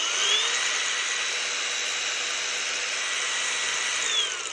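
Cordless brushless angle grinder with a 4.5-inch disc running free at full speed with a steady high whine, no load on it. About four seconds in it is switched off and the whine falls away as the disc spins down.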